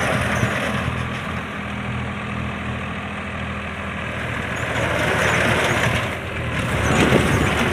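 Tractor diesel engine running steadily while driving a front-mounted reaper binder through dry standing crop, with the noise of the cutter and stalks over the engine hum. It gets louder from about five seconds in as the machine comes close.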